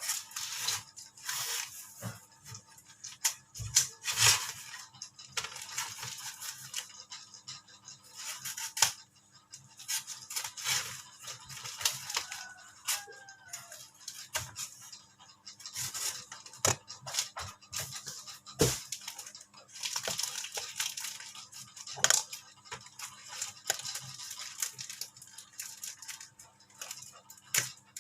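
Packaging being handled and opened by hand: irregular rustling, scraping and tearing, broken by sharp clicks and knocks.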